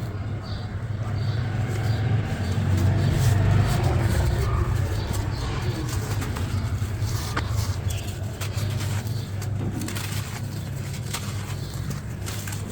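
A crunchy, brittle ASMR crumble block broken and crushed by hand, giving a run of crisp crackles that grow thicker in the second half. A steady low hum runs underneath.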